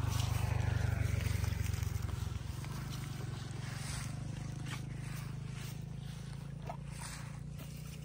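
A steady, low engine drone with a fast, even pulse, joined in the second half by a few light clicks and rustles of leaves being handled.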